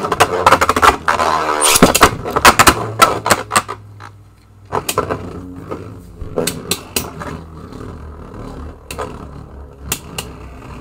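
Two Beyblade Burst spinning tops, Helios Volcano and Dynamite Belial, battling in a plastic stadium. The first two seconds are a loud clatter of clicks and knocks with a falling whir. After that the tops spin with a low steady hum and scattered clicks as they strike each other and the stadium wall.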